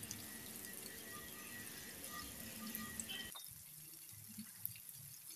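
Faint sizzling of napa cabbage stir-frying in a steel wok, dropping quieter a little past halfway.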